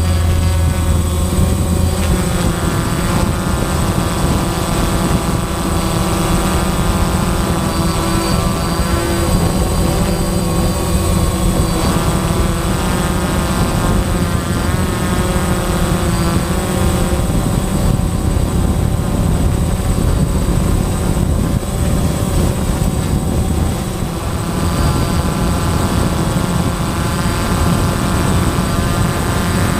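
Quadcopter's electric motors and propellers whining, heard close from on board, with the pitch rising and falling as the throttle changes, over a rush of wind and prop wash.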